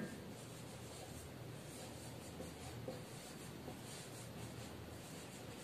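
Whiteboard marker writing: faint, scratchy strokes of the felt tip across the board.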